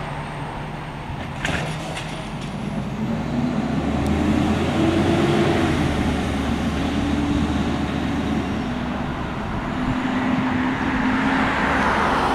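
Heil CP Python automated side-loader garbage truck working a cart. A sharp knock about a second and a half in as the cart is shaken out, then the engine revs up and holds to power the hydraulic arm. The engine runs on louder near the end as the truck pulls away.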